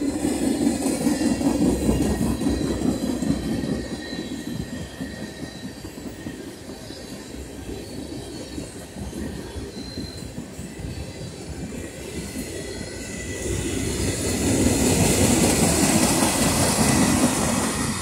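Freight cars of a Norfolk Southern manifest train, mostly tank cars and covered hoppers, rolling past with a steady rumble and rattle of steel wheels on rail. The sound swells louder at the start and again a few seconds before the end, with faint thin wheel squeals.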